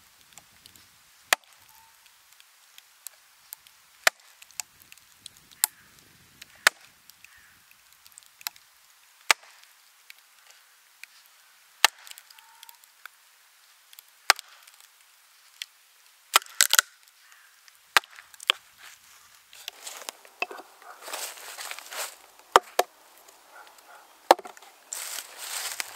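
Wooden maul knocking on an axe and wedges driven into the split of a green ash log: a dozen or so sharp, separate blows, a second or two apart. In the last few seconds the wood crackles and scrapes as the split opens.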